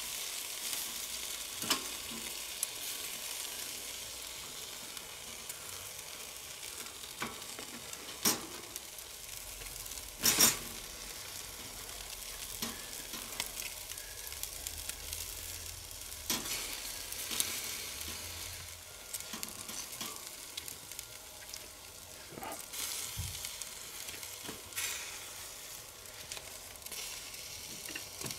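Steaks and bacon sizzling on a charcoal grill grate, a steady hiss with occasional sharp clicks of metal tongs against the grate, the loudest about ten seconds in.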